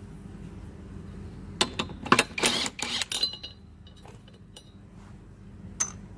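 A quick flurry of metal clinks and rattles about a second and a half in, lasting a second or two, then one sharp click near the end, as small metal parts are handled at the top of a lawnmower engine being stripped down around its flywheel.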